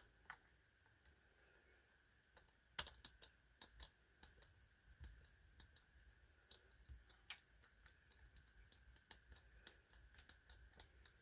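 Faint, irregular metallic clicks and ticks of a home-made pick and tension shim working the levers inside an ERA Big 6 lever lock during picking.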